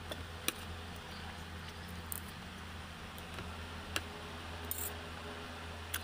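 Eating sounds: a spoon and fork clicking and scraping on a plate of rice a few times, with soft chewing between, over a steady low hum.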